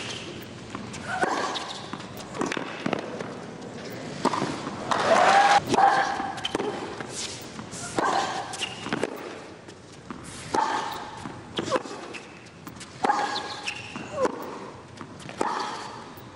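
Tennis rally: racket strikes on the ball at about one shot a second, many with a player's short grunt.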